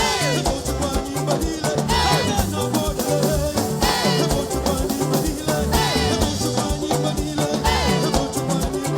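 Live gospel band playing music with a steady beat: bass and drums under a sliding melodic line that falls in pitch every couple of seconds.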